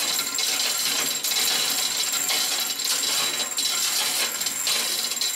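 Manual chain hoist being hand-pulled: the hand chain rattles and clinks continuously through the hoist as it lifts the forklift's engine and transmission.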